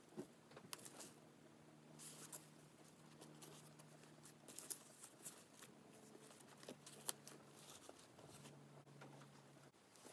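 Near silence: faint rustling and light taps from a foam-wrapped leather handbag being handled and turned over, over a faint low hum.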